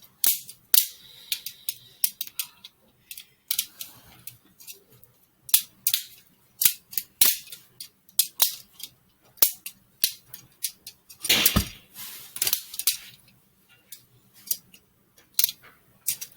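Homemade Lego balisong being flipped: the plastic handles and blade clack and click against each other in quick, irregular snaps. About eleven seconds in comes a longer, louder clatter.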